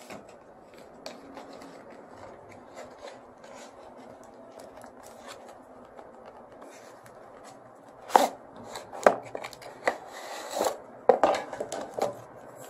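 Cardboard tablet box being handled and opened: faint scraping and small clicks, then from about eight seconds in several sharper cardboard knocks and a rustle of the plastic bag around the tablet.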